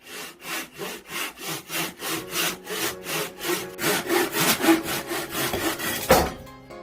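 Hand saw running in a 90-degree saw guide, cutting through a square wooden batten with fast, even back-and-forth strokes, about three a second. The sawing ends with a single loud knock about six seconds in.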